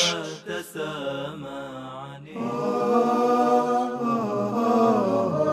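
Islamic vocal chant (nasheed) in a man's voice, without instruments; from about two seconds in it holds long, steady notes.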